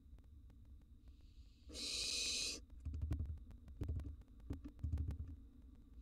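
Barn owl nestling giving its hissing, snore-like begging call, one loud hiss of just under a second about two seconds in. It is followed by a run of low thumps and scratchy clicks as the owlets shift about in the wooden nest box.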